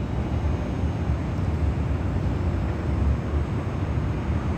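Steady low rumble of city background noise with a faint hiss above it.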